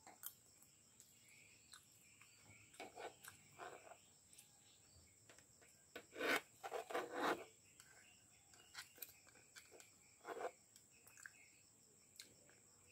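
Eating at the table: a metal fork and spoon clicking and scraping on a plastic plate, with chewing. There are many light clicks and a few louder scrapes, the loudest cluster in the middle.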